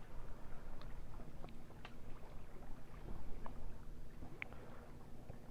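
Chewing and eating: scattered small clicks and crunches over a faint low outdoor rumble.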